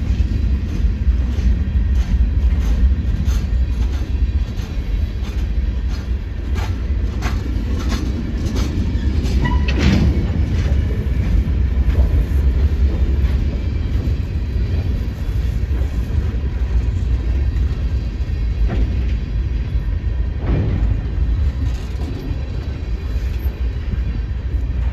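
Freight cars of Norfolk Southern train 168 rolling past: a steady low rumble with the sharp clicks and clacks of wheels going over the rail joints.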